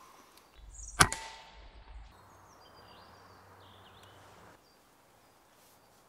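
A single shot from a Walther RM8 pre-charged air rifle about a second in: one sharp crack followed by a short ring. Faint birdsong follows.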